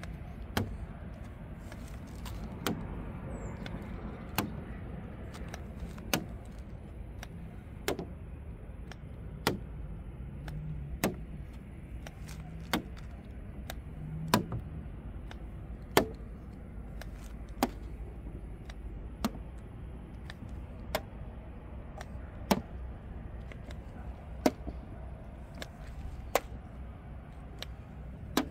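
Handheld paint thickness gauge probe pressed against a car's painted steel body panels, each contact giving a sharp click, about one every second and a half to two seconds, over a steady background hum.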